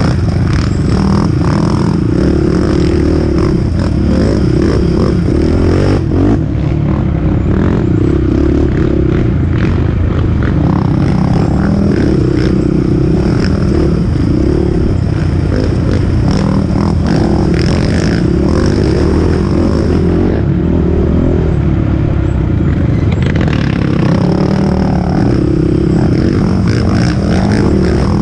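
Sport quad's engine running hard under load on a rough trail, the revs rising and falling with the throttle, heard from on board with knocks and rattles as the machine crosses rough ground.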